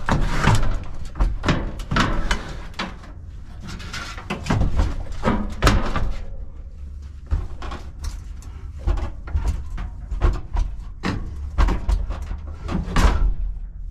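A sheet-metal air-conditioner condensing unit being shoved and slid across a van's cargo floor: repeated irregular thumps and knocks with scraping between them.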